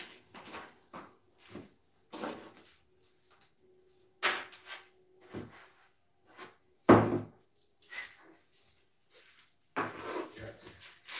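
Irregular knocks and thuds of a knife cutting a pineapple on a cutting board while pieces and a bowl are put down on the table; the loudest knock comes about seven seconds in.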